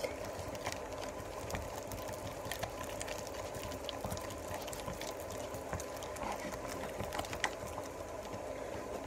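Homemade slime being squeezed, kneaded and stretched in the hands, giving scattered small sticky clicks and pops over a steady background hum.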